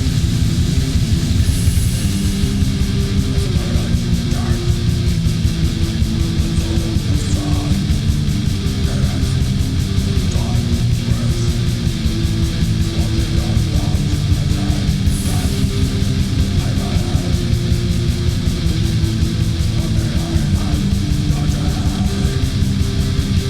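War metal: heavily distorted guitars and fast, even drumming at a steady, loud level, with a cymbal crash about a second and a half in and another about fifteen seconds in.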